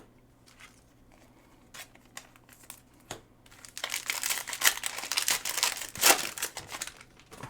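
A trading-card pack's foil wrapper being torn open and crinkled, in dense crackling from about halfway through, after a few light clicks and rustles.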